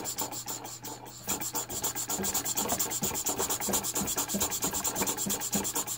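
Jensen #50 model steam engine turned over by hand, without steam, its freshly lubricated piston and valve gear chugging in a fast, even rhythm. The strokes pick up speed about a second in, showing that the engine now turns freely.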